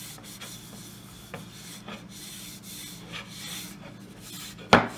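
A cloth rag rubbing oil finish into a sanded wooden handle, in uneven back-and-forth swishes. Near the end there is a single sharp knock.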